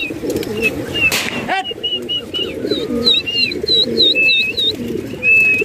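Domestic pigeons cooing in a continuous low chorus. From about halfway through, another bird's short high chirps repeat over it, about three a second.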